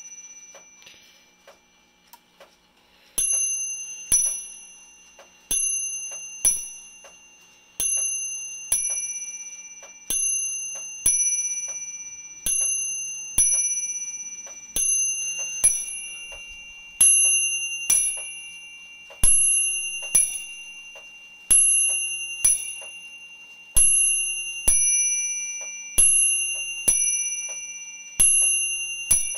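Electromechanical clock movement striking its two brass bells with its hammers, about one strike a second, each note ringing out and fading before the next. A few faint clicks come first, and the striking begins about three seconds in.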